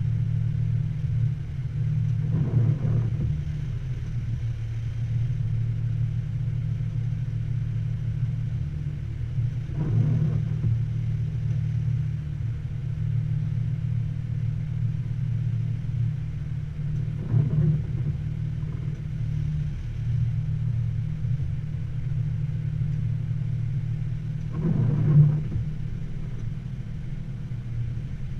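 Military vehicle's engine running at low speed, heard from inside the cab: a steady low drone that swells briefly four times, about every seven to eight seconds, the loudest near the end.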